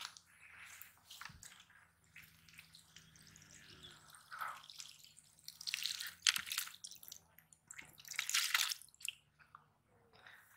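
Water pouring and dripping out of a PVC pipe fish trap into a perforated plastic basket, in two louder gushes, one about halfway through and one near the end, with light dripping and handling noises between.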